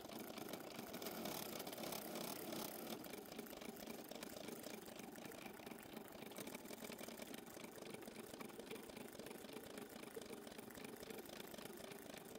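Embroidery machine running, its needle stitching in a fast, steady clatter, a little louder in the first few seconds.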